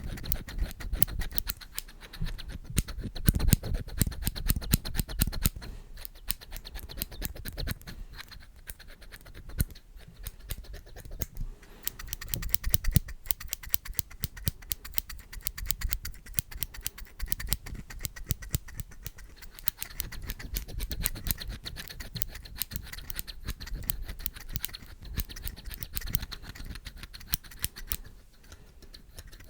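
Rapid ASMR tapping and scratching on an object: many light clicks a second throughout, with a few heavier thumps.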